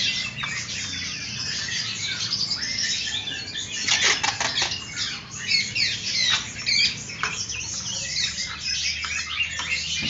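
Many caged songbirds chirping and calling over one another in quick short notes and whistles. There is a cluster of sharp clicks about four seconds in, and a low steady hum underneath.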